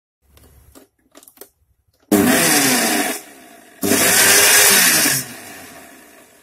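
Panasonic mixer grinder running in two short pulses with water and a drop of dishwashing gel in its stainless steel jar, to wash dust from between the blades. The first run starts about two seconds in and lasts about a second. The second starts just before four seconds and lasts about a second and a half. After each one the motor winds down, and the second fades out near the end.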